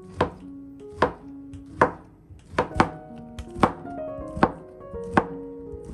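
Knife chopping through a block of tempeh onto a cutting board: sharp, evenly spaced strokes, about one every 0.8 seconds, with soft background music.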